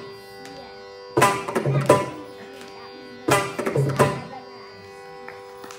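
Mridangam played in two short flurries of strokes over a steady drone in a Carnatic recital.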